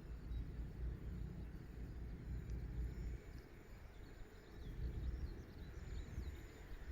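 Outdoor ambience: a low, gusting wind rumble on the microphone, with a few faint high bird chirps in the middle.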